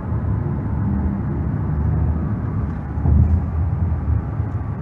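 Steady low rumble of road and engine noise inside a moving car, swelling briefly about three seconds in.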